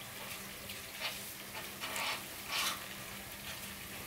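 Paper banknotes rustling in short crinkles as they are handled and counted, a few times, the loudest about two and a half seconds in, over a faint steady low hum.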